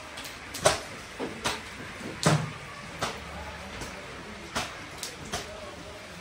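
About ten irregular sharp knocks and clacks, the loudest about two-thirds of a second and two and a quarter seconds in, over a faint background murmur.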